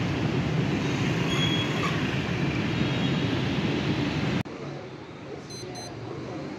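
Filled turnover pastries deep-frying in a pan of hot oil, a steady dense sizzle. The sizzle cuts off abruptly about two-thirds of the way in, giving way to a much quieter background with two short high-pitched tones.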